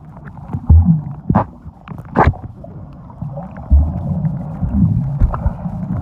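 Muffled underwater sound picked up by a submerged camera: a constant low rumble of moving water with several dull knocks and thumps.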